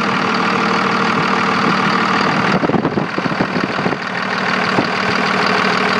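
Cummins 24-valve ISB 5.9 turbo-diesel straight-six idling smooth and steady, with its diesel clatter heard close up under the hood. About two and a half seconds in, the sound turns sharper and more uneven, with more ticking.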